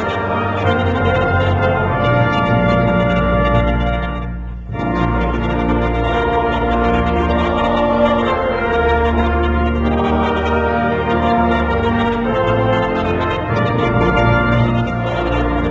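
Live music: organ with brass instruments playing sustained chords, with a brief break about four and a half seconds in.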